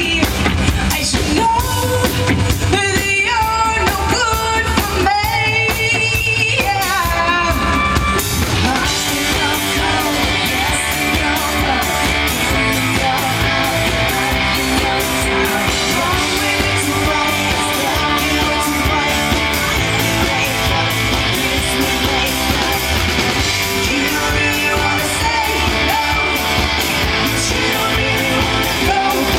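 Live pop-rock band playing a song at a sound check, with drums and guitar under a woman's lead vocal; the singing stands out most clearly in the first several seconds.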